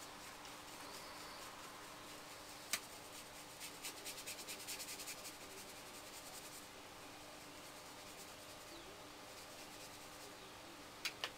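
Paintbrush strokes of acrylic paint on paper, a faint dry rubbing. A quick run of light taps lasts about three seconds in the middle, with a single sharp click before it and two clicks near the end.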